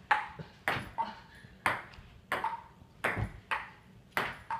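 Table tennis ball clicking off paddle and table in a rally, about two sharp hits a second, each with a short ringing ping.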